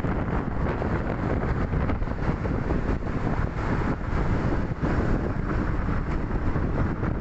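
Wind buffeting the microphone as the camera moves along a road: a steady low rush with rapid flutter and no clear engine tone.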